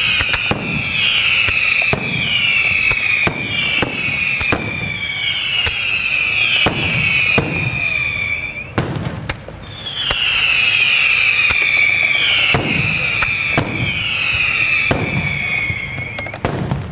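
Aerial fireworks display by the St. Mary Fireworks Factory of Malta: many overlapping whistles, each falling in pitch, over a rapid run of bangs. There is a brief lull about nine seconds in, then the whistling and bangs resume and thin out near the end.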